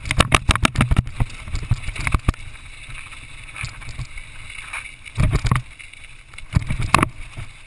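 Mountain bike rattling and clattering over rough, rocky dirt trail on a fast descent, with bursts of hard knocks in the first second, about two seconds in, and again about five and seven seconds in, over a steady rumble of wind on the camera's microphone.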